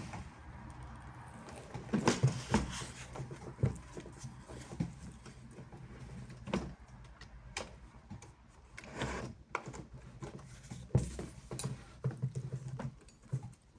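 Scattered clicks and knocks from a Hohner Morino 4M piano accordion being handled, with no notes played.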